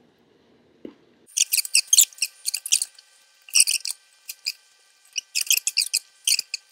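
Plastic spoon scraping and squeaking against the inside of a Blizzard cup, in quick clusters of short, high squeaks.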